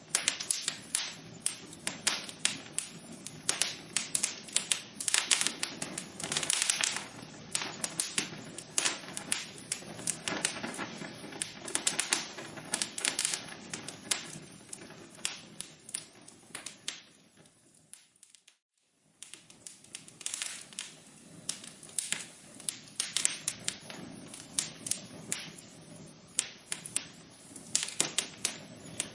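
Wood fire in a fireplace crackling: rapid, irregular pops and snaps over a low hiss. About two-thirds of the way through it fades almost to silence for a second, then comes back.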